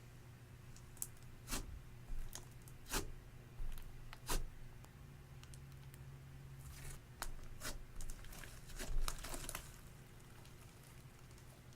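Clear slime being squeezed and stretched by hand: irregular sticky clicks and pops, and a short crackly stretch near the end before it goes still.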